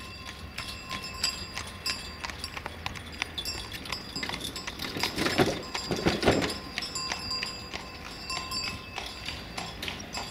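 Horse-drawn cart passing: the horse's hooves clip-clop steadily on the road and the cart rattles along, loudest about halfway through as it goes over the level crossing.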